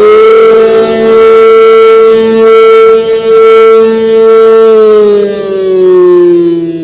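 ACA Allertor 125 rotating dual-tone (8/12 port) civil defense siren sounding the Attack wail. Its pitch finishes rising at the start, holds high for about four seconds, then falls near the end, and its loudness dips every second or so.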